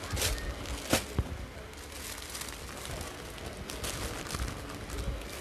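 Crinkling and rustling of a plastic garment packet and cloth being handled, with a few sharp crackles, the loudest about a second in.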